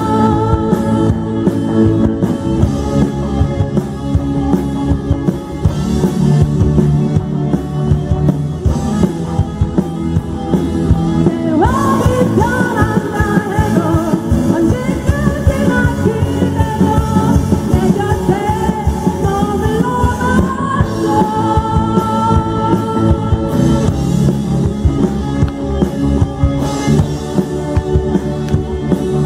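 Live band playing a pop song through stage speakers: a woman singing lead over electric guitars, keyboard and a steady drum beat.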